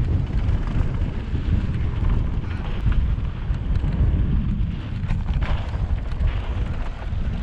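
Wind buffeting the microphone of a camera on a mountain bike riding down a dirt trail, a steady low rumble with tyre hiss and a few short clicks and rattles from the bike.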